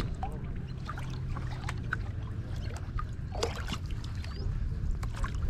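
Boat motor running steadily at low speed, with scattered clicks and knocks over it and one sharp knock at the start.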